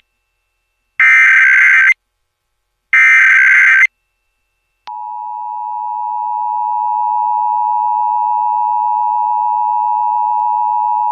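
Emergency Alert System broadcast: the last two of the three warbling digital SAME header bursts, about a second each and two seconds apart, then after a short gap the two-tone EAS attention signal (853 and 960 Hz) comes in about five seconds in, swelling over two seconds to a steady loud tone. It marks the start of a national EAS test relayed over the air.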